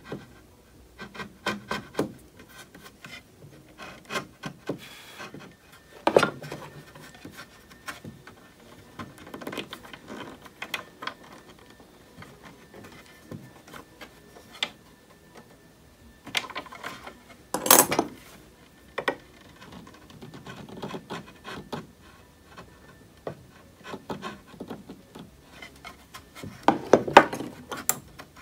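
Hand chisel paring wood out of a butt-hinge mortise: irregular scraping, slicing strokes with small clicks. A few louder short strokes stand out, the loudest about two-thirds of the way through.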